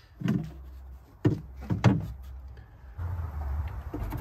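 Three sharp knocks within the first two seconds, hard parts handled against the camper's metal storage compartment, followed by a low steady hum from about three seconds in.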